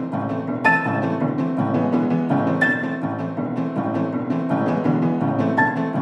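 Instrumental background music: struck notes sounding every second or so over a steady low bass line.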